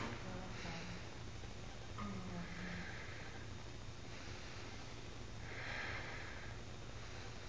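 A person's slow, heavy breaths, a few long airy swells with the loudest about six seconds in, over a steady low room hum.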